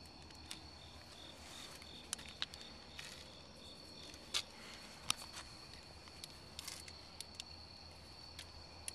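Crickets trilling steadily in a faint high continuous chorus, with a second, pulsing chirp in the first few seconds. Scattered sharp clicks and taps sound over it.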